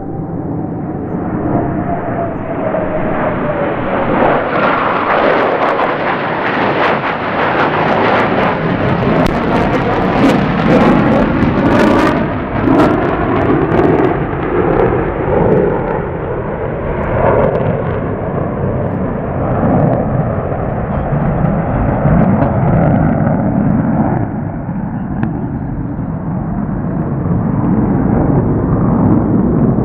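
Rockwell B-1B Lancer's four General Electric F101 turbofans in a loud jet flyby, a tone falling in pitch in the first few seconds as it passes. Sharp crackle builds from about eight to thirteen seconds in as the bomber pulls up and climbs away, then a steadier, slowly fading rumble.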